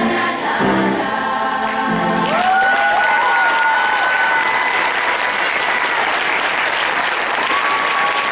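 A children's choir sings the last chords of a song, then audience applause breaks out about two seconds in and carries on, with cheers and a rising whoop over it.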